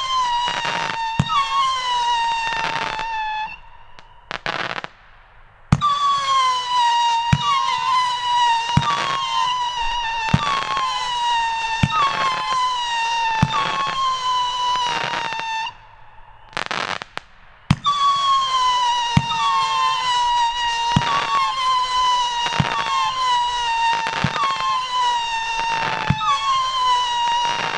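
Shogun Howler Monkey 500-gram fireworks cake firing whistling shots one after another, about one every second and a half. Each shot starts with a sharp crack and a loud whistle that sags a little in pitch, overlapping the next. Twice the whistles break off for a couple of seconds, with a short crackle in between.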